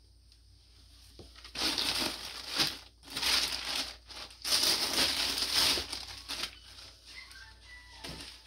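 Plastic bag crinkling and rustling in several bursts over a few seconds as clothing is pulled out of it.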